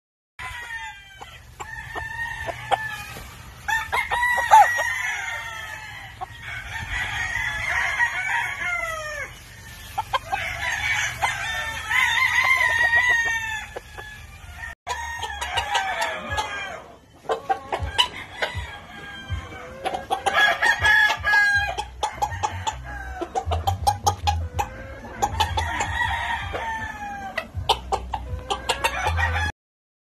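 Gamefowl roosters crowing, one drawn-out crow after another every few seconds, several birds in turn, over a steady low rumble and scattered clicks. The sound breaks off abruptly a few times where clips are cut together.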